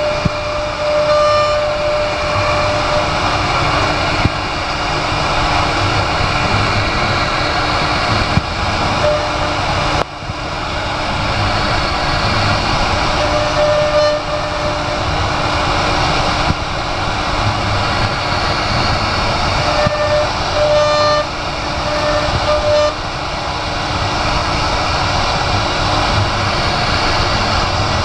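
Wood CNC router running steadily as it cuts, a loud even machine noise, with short pitched tones that come and go a few times.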